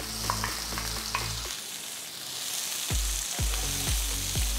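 Chopped onions sizzling as they fry in hot oil with whole spices in a wide pan, with a few light clicks from stirring.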